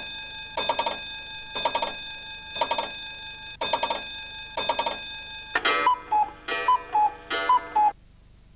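Countdown leader sound effect: a chime-like tone struck about once a second, each strike ringing briefly. In the last seconds three strikes of a different tone come, each followed by two short notes, high then low. It stops about eight seconds in.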